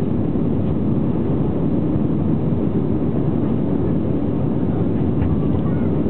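Steady jet engine noise of an Airbus A320-family airliner heard from a cabin seat over the wing, as the aircraft climbs shortly after takeoff.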